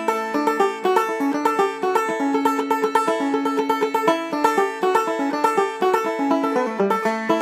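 Deering Deluxe five-string banjo played solo in Round Peak clawhammer style, tuned aEAC#E, in a steady, unbroken stream of quick plucked notes over ringing open strings.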